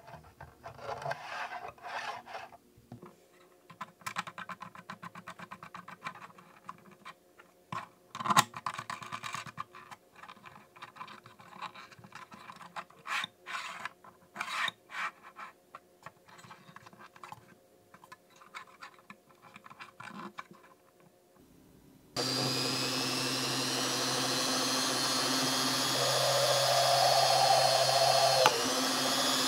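Hands handling and fitting 3D-printed plastic parts, a rip fence and its knobs, onto a plastic table top: irregular clicks, taps and rubs. About 22 s in, a small bench drill press starts running steadily and drills into a thin metal plate.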